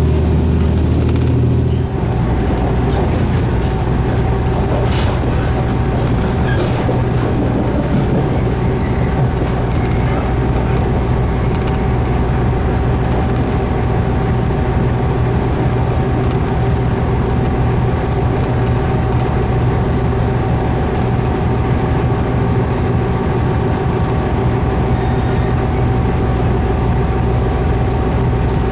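Diesel railcar running at steady speed, a continuous low engine drone with a steady hum over it; the low drone shifts about two seconds in, and a couple of faint clicks come a few seconds later.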